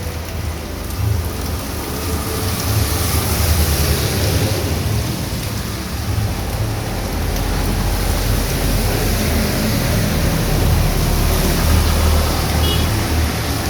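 Heavy rain falling steadily, a dense even hiss, with a deep low rumble underneath that swells louder about halfway through.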